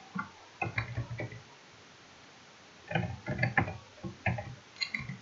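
Computer keyboard typing: short runs of clicking keystrokes, a few about a second in and a quicker run around three seconds in, with single taps near the end.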